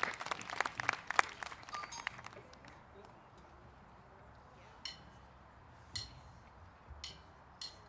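Audience applause dying away over the first two seconds or so, then a quiet lull broken by a few isolated sharp clicks.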